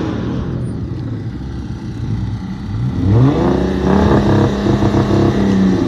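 Stock Dodge Charger engine idling through its factory exhaust, then revved up about three seconds in and held at higher revs.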